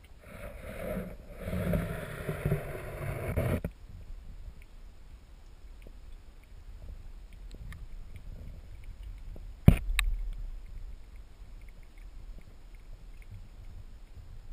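Water churning against an underwater camera for the first few seconds as a common snapping turtle swims right up to it. About ten seconds in comes one sharp knock on the camera as the turtle bumps it.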